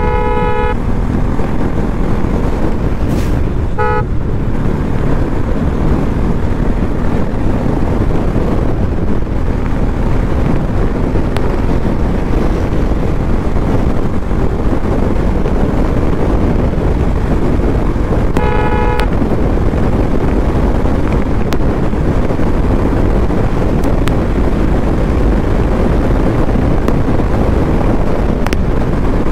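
Bajaj Pulsar NS200 motorcycle running at speed, its engine and the wind rush on the microphone making a steady loud roar. A vehicle horn honks briefly three times: right at the start, about four seconds in, and once more around eighteen seconds in.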